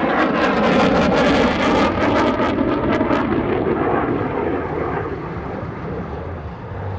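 Twin GE F414 turbofans of an F/A-18F Super Hornet in a fast pass, loud and crackling for the first three seconds or so, the pitch falling as it goes by, then fading steadily as the jet banks away.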